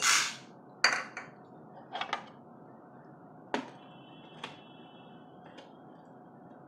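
Dried chickpeas poured from a plastic measuring cap into the chamber of a hot-air snack maker: a short rattling rush at the start. Then a string of light plastic clicks and knocks as the clear top and measuring cap are fitted onto the machine.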